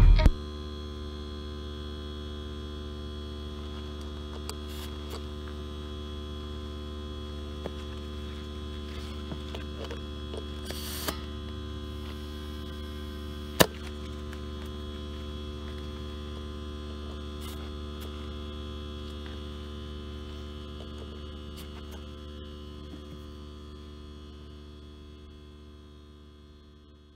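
Steady electrical-sounding hum with even overtones, broken by a few faint clicks and one sharp tick about halfway through, fading out over the last few seconds.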